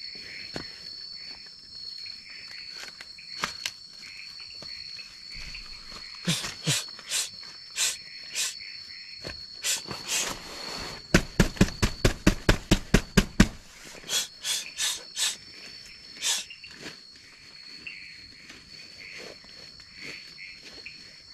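Night insects droning steadily on one high note. Over it come sharp knocks from about six seconds in, including a fast run of about a dozen louder knocks, roughly five a second, around the middle.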